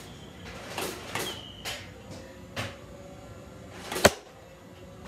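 Nerf blaster firing foam darts: a few sharp clacks and knocks roughly a second apart, with the loudest sharp hit about four seconds in.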